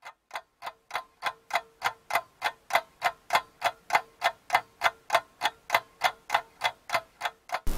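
Clock ticking, an even tick-tock about three times a second, growing louder over the first second.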